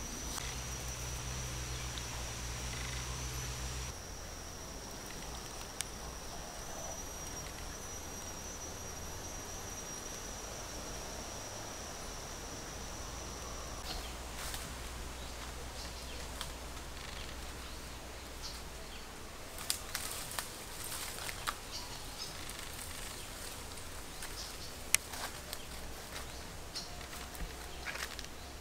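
An insect holding a steady, high buzzing note that stops about halfway through, over a low rumble. Later, scattered rustles and sharp snaps of someone moving through brush and undergrowth.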